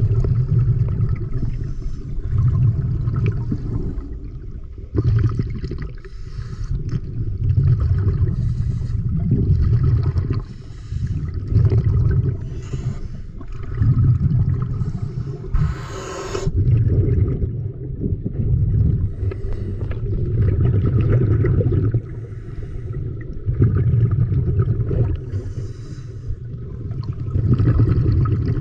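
Muffled water noise picked up by a camera held underwater, swelling and fading about every two seconds, with a short hissing burst about halfway through.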